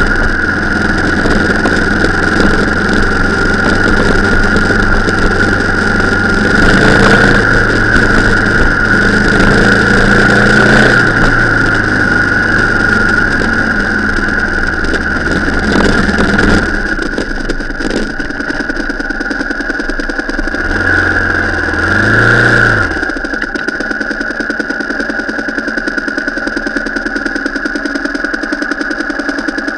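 A vehicle engine running under load with a steady whine, easing off about halfway through; two short revs follow, then it runs quietly at low revs.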